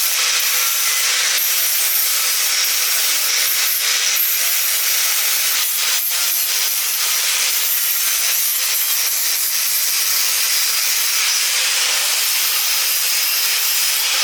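Loud, steady high-pitched hiss from factory equipment, holding even throughout and stopping abruptly at the end.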